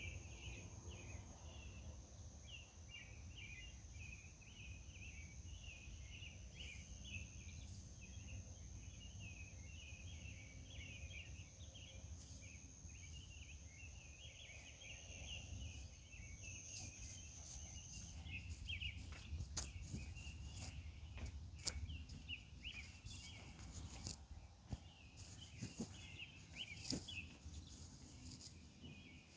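Faint night insect chorus: dense, rapid chirping throughout with a steady high-pitched trill over it that stops about eighteen seconds in, above a low rumble. A few sharp clicks come in the later part.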